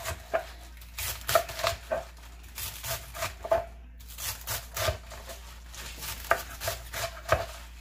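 Chef's knife slicing through napa cabbage and knocking on a wooden cutting board in a run of quick, uneven chops, with a brief pause about four seconds in.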